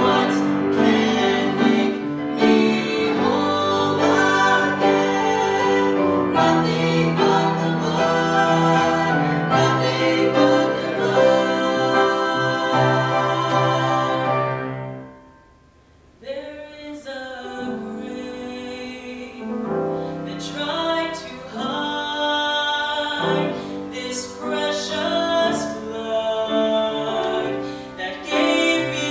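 Vocal trio of two women and a man singing a gospel song in harmony with instrumental accompaniment. About halfway the music drops almost to silence for a second, then resumes more softly.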